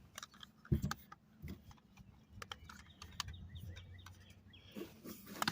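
Scattered light clicks and taps of a plastic toy and its packaging being handled and worked loose, with one louder knock under a second in. Faint short chirps sound in the middle.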